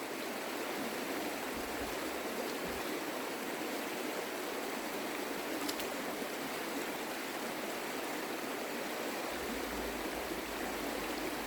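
A creek flowing, a steady rushing of running water.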